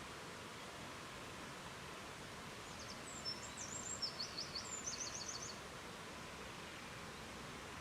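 Steady rushing of a flowing river, with a small songbird singing one short phrase of quick, high chirps and trills about three seconds in.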